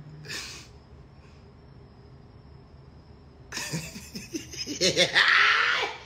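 A man laughing, loud and breathy, starting a little past halfway and lasting about two and a half seconds; before it only faint room noise.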